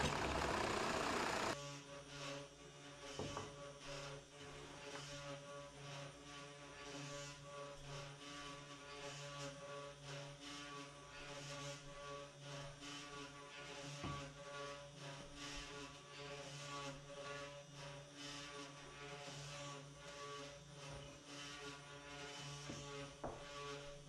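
Benchtop drill press boring into wood, cutting off suddenly about a second and a half in. After that, a steady low electrical hum with a few faint clicks.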